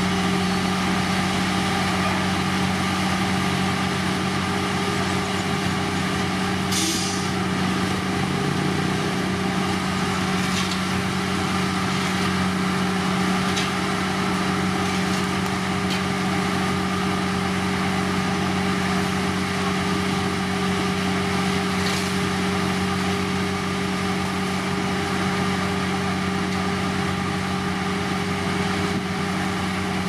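Heavy diesel road-building machinery running steadily, a constant low drone. A short hiss sounds about seven seconds in, with a few faint ticks later.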